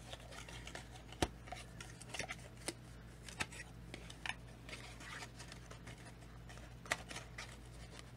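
Stiff kraft-cardboard packaging being worked open by hand: scattered sharp clicks and snaps as the tuck flaps are pried, about three of them loudest, with short scratchy rustles of cardboard sliding against cardboard in between.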